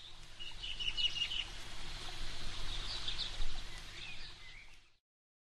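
Outdoor ambience with birds chirping in short bursts over a faint steady hum and background noise. It cuts off suddenly near the end.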